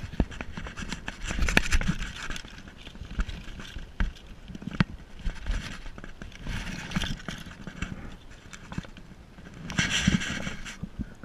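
Irregular knocks and bumps with short bursts of splashing as a trout is handled in a rubber-meshed landing net at the water's surface; the louder splashes come about a second and a half in, around seven seconds and near the end.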